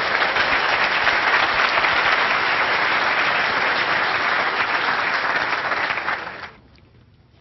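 Audience applauding, a dense steady clapping that cuts off about six and a half seconds in.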